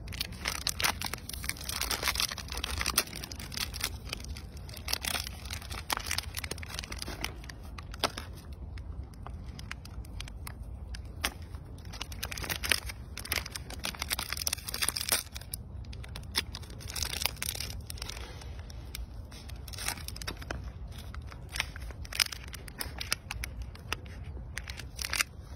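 Plastic snack wrappers crinkling and tearing as a macaque pulls them open, irregular rustles and sharp crackles throughout over a low steady rumble.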